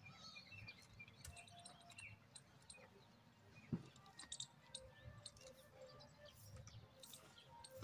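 Faint chirping of small birds, with soft irregular squirts and clicks from a cow being milked by hand into a steel pail. One knock comes nearly four seconds in.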